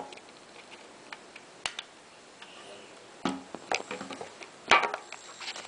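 Hard plastic LEGO parts clicking and knocking as an assembled model is handled. Single sharp clicks come at irregular intervals, with short clattering clusters about three and a half seconds in and a louder one a bit under five seconds in.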